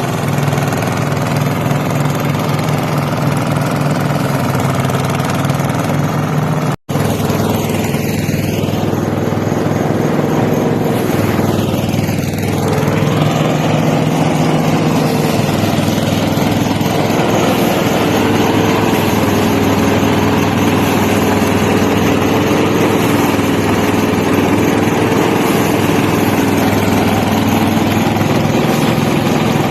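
An engine running steadily, with a momentary break about seven seconds in.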